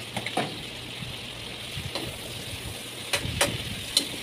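Moringa pods and sautéed vegetables sizzling in a metal frying pan over a gas flame, with a metal ladle knocking and scraping against the pan several times as they are stirred, the sharpest clinks a little after three seconds and at about four seconds.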